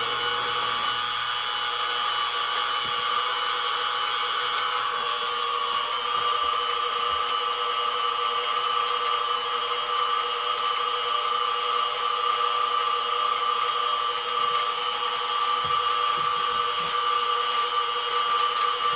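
Mini mill spindle motor running steadily at speed with its drill bit spinning free, not yet cutting: a steady whine of several pitches.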